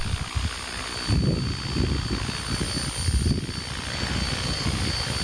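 Radio-controlled helicopter hovering with its tail rotor toward the listener. Two sounds dominate: the transmission's noise, heard as steady high tones, and a low, uneven main-rotor sound from the rotor interfering with itself.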